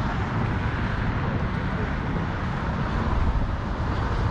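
Steady wind buffeting the microphone, an unbroken rumbling hiss heaviest in the low end.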